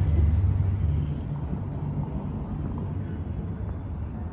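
City street traffic: a motor vehicle passing close by, its low rumble loudest at the start and fading over the first two seconds. Faint voices of people at the street's café tables are heard over the general street noise.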